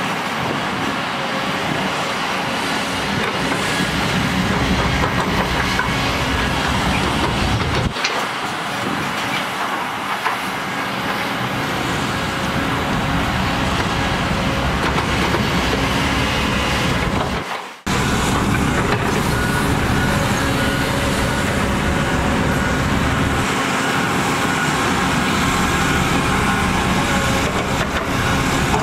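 Kobelco hydraulic excavator's diesel engine running as it digs wet mud. After a sudden cut about two-thirds of the way in, a Komatsu crawler dozer's engine running as it pushes dirt.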